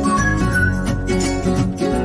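Background music: plucked-string instrumental with a steady beat and a deep bass line.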